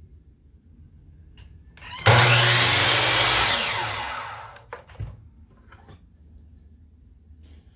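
Ridgid sliding miter saw starting suddenly about two seconds in and chopping through a small black walnut block, then its motor and blade spinning down and fading over about a second and a half. A single sharp knock follows.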